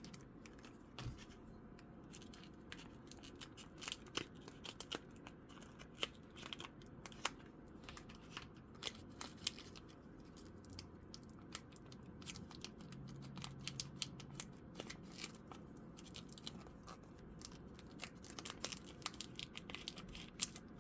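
Pokémon TCG booster pack being opened and its cards handled: foil wrapper crinkling and tearing, with a scattering of small irregular clicks and rustles throughout.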